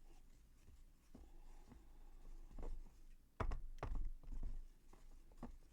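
Spoon handle stirring and scraping wet plaster in a bowl, with soft scrapes and clicks and a few louder knocks against the bowl a little past the middle.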